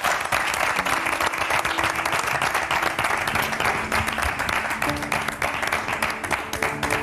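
A studio full of people applauding, many hands clapping together, with music playing underneath.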